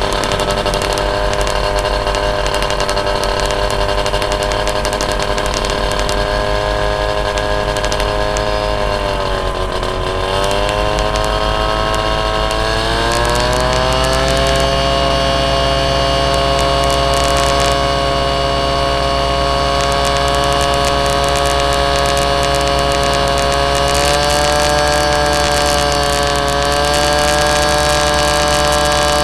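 Small propeller engine running steadily as heard from the aircraft it powers. Its pitch sags briefly about ten seconds in, then climbs to a higher steady note, with another slight rise later on.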